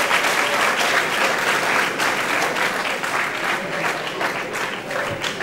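Student audience in a hall clapping and cheering, a steady dense applause that eases slightly towards the end.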